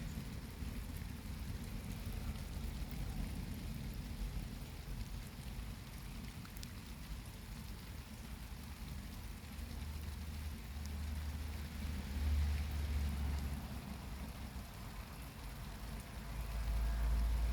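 Wind buffeting the microphone in a low rumble that swells about ten seconds in and again near the end, over light rain falling, with a few faint drop ticks.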